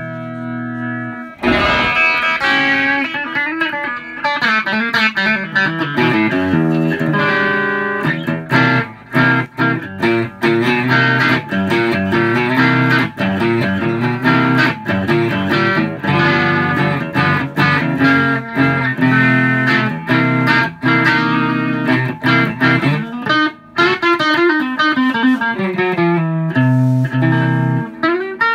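Home-built hollow-body electric guitar made of quarter-inch plywood, played amplified. A held chord rings at first; about a second and a half in, busy picking of quick single-note runs and chords begins and carries on.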